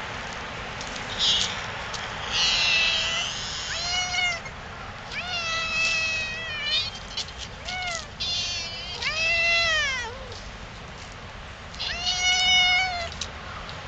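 Stray cats meowing loudly over and over, about eight long, drawn-out meows, several rising and then falling in pitch.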